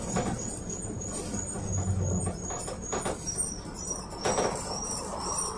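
Cabin sound of a PAZ 32054 bus under way: the steady low drone of its ZMZ-5234 V8 engine running on LPG, with body knocks and rattles, the loudest about four seconds in. A row of short, high chirping squeaks repeats about three times a second throughout.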